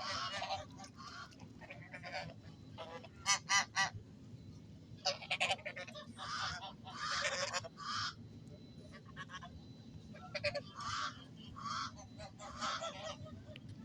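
Geese honking in a string of irregular short calls, with a quick run of four loud honks about three and a half seconds in.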